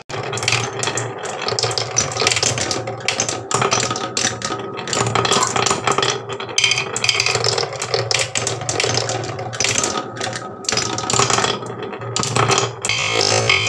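Marbles rolling and clattering along wooden marble-run tracks: a dense, irregular run of wooden clicks and rattles.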